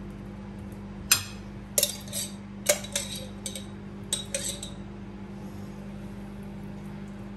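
Crockery and cutlery clinking: about eight sharp clinks, some with a short ring, in the first half, over a steady low hum.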